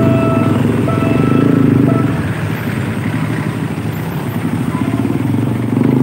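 A PNR commuter train passing with a heavy rumble. A steady pitched tone sounds on and off in short spells during the first two seconds. The rumble then settles into street traffic with motorcycles.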